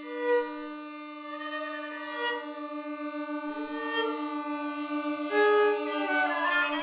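Contemporary chamber music from a string trio of violin, viola and cello: a long held low note with short higher bowed notes over it. The held note takes on a slight pulsing about halfway through, and a quick upward flurry of notes comes near the end.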